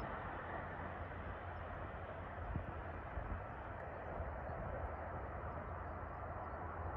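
Steady outdoor rumble with a low hum and a few soft thumps, with no single event standing out.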